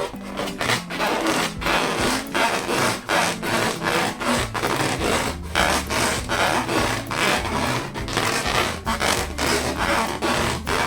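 Latex balloons being rubbed, a rough scraping noise in quick repeated strokes.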